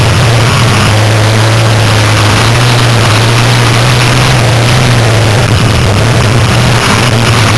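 Onboard sound of a race car lapping a dirt oval at speed: a loud, steady engine drone under heavy wind and road noise, level throughout without clear rises or falls.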